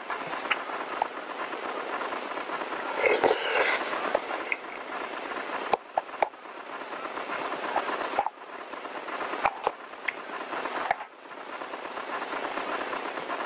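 Spoon clicking and scraping in a foil food pouch, with a louder crinkle of the pouch about three seconds in, over a steady hiss.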